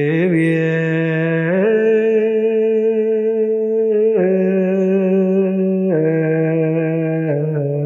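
Ethiopian Orthodox Ge'ez liturgical chant (wereb), sung by a male voice. It holds long drawn-out notes and moves to a new pitch every couple of seconds, with small ornamental turns between them.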